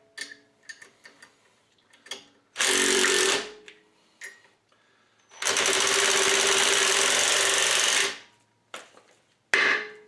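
Cordless impact driver hammering hex-head bolts into the threaded jacking holes of a seized rear brake rotor. It runs in bursts of one to three seconds, with light clicks between. The bolts press against the hub to push the rust-bonded rotor off, and the hammering jars the rust bonds free.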